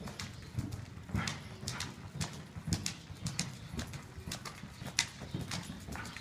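Hoofbeats of a horse cantering on dirt arena footing: a steady, rhythmic run of dull thuds with sharper clicks.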